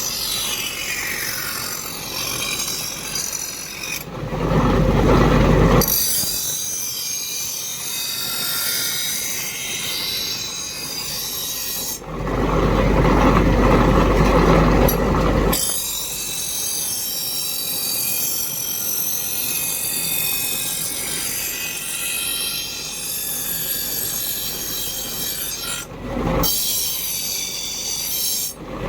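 Continuous rasping scrape of steel being abraded, as in working a knife blade, with two louder stretches of low rumble, one about four seconds in and one about twelve seconds in.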